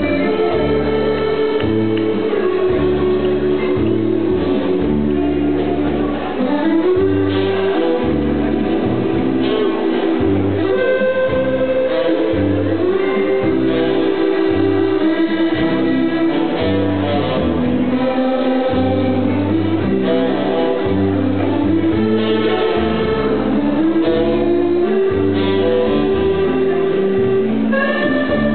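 Live dance band music with singing: a sung melody over electric guitar and a steady, pulsing bass beat.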